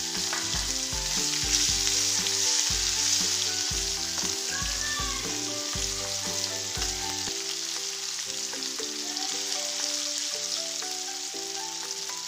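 Sliced onions and a bay leaf sizzling as they fry in hot oil in an aluminium kadai, with a spatula stirring them. Background music plays underneath.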